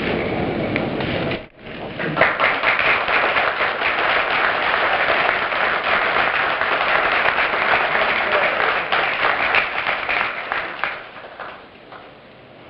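A room full of people applauding, dense steady clapping with a brief break about a second and a half in, then dying away near the end.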